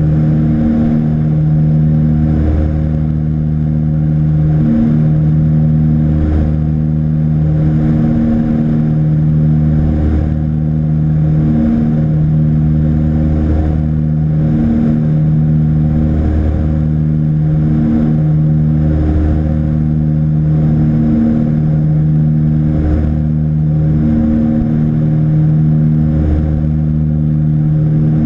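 Propeller engines of a twin-engine Britten-Norman BN-2 Islander droning steadily in cruise, heard from inside the cabin. A slow, regular pulsing runs through the drone.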